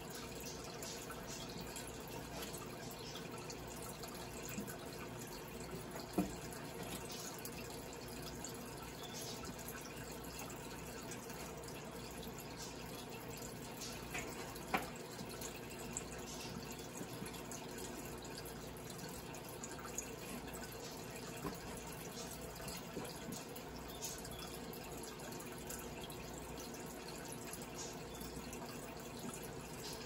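Microwave oven running with a steady hum, heard through computer speakers, with occasional sharp pops and small crackles from the chocolate-covered cherries heating inside.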